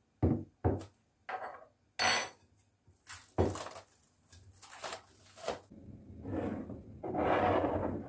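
A metal spoon knocking and clinking against a glass mixing bowl, several sharp taps with one bright ringing clink about two seconds in, then the heavy glass bowl knocked down on the stone countertop and a glass dish slid across it with a longer scraping rustle near the end.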